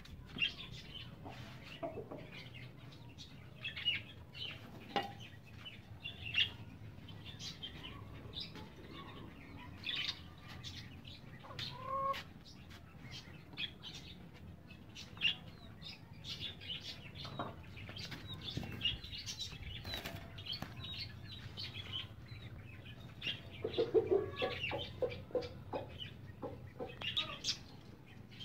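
Caged birds: scattered short high chirps and wing flutters throughout, with a run of low repeated calls near the end, from chickens and pigeons.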